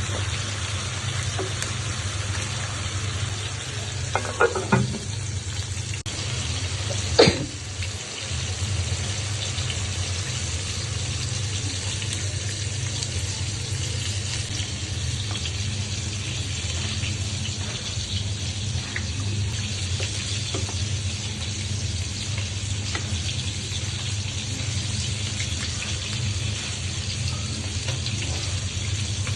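Food frying in a pan with a steady sizzling hiss, with a couple of short utensil knocks about four and seven seconds in.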